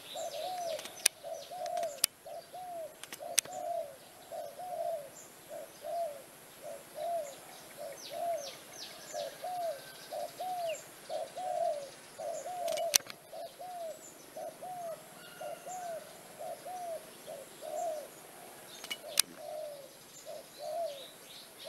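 A bird's low call: a short rising-and-falling note repeated evenly, about every three-quarters of a second, without a break. Smaller birds chirp faintly higher up, and there are a few sharp clicks.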